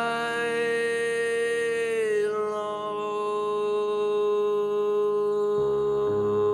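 Slow ballad music: a long held sung note that ends about two seconds in, then a steady sustained note, with lower accompaniment notes stepping in underneath near the end.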